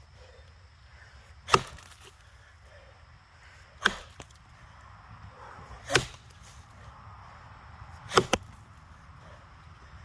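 Axe chopping into a box elder log: four strikes about two seconds apart, the last followed at once by a smaller knock.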